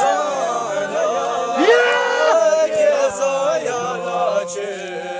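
Several voices chanting together in unison, with drawn-out, wavering pitch.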